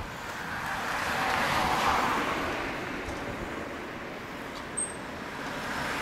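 A car passing on the road, its tyre and engine noise swelling to a peak about two seconds in and fading, with another vehicle approaching near the end.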